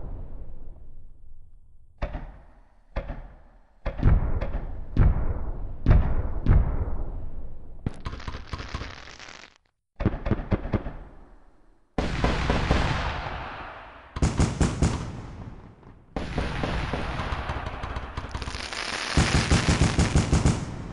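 Fireworks going off: a series of loud bangs about a second apart, each dying away, then long strings of rapid crackling shots. The sound cuts out and starts again abruptly several times.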